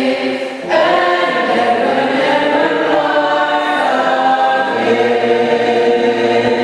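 A choir singing together in long held chords, with a brief break about half a second in before a new phrase begins.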